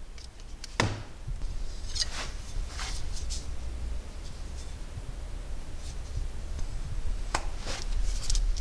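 Objects being handled on a cluttered workshop shelf: scattered light clicks and knocks, one about a second in, a few around two to three seconds, and two near the end, over a steady low rumble of the handheld microphone being moved.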